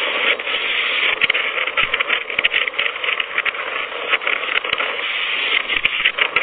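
Hurricane-force wind and rain roaring into the microphone: a loud, steady rushing noise broken by frequent crackles.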